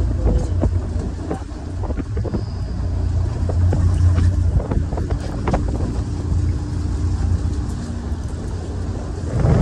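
Sportfishing boat's engines running as a steady low rumble with a faint hum, mixed with wind on the microphone and a few light knocks.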